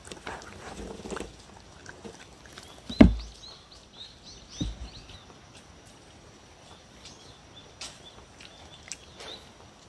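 A dog eating from a wooden bowl close to the microphone: soft chewing and licking at first, then one sharp loud knock about three seconds in and a smaller knock about a second and a half later. There are faint bird chirps in the background.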